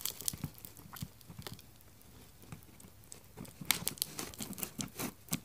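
Shipping packaging crinkling and rustling as it is handled, with scattered light clicks; the handling gets busier in the last second and a half.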